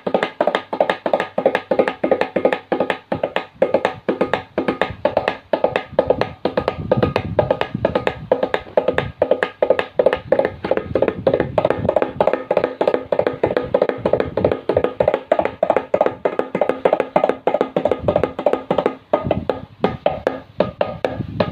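Tabla pair played in a rapid, continuous stream of strokes, imitating the sound of a running horse.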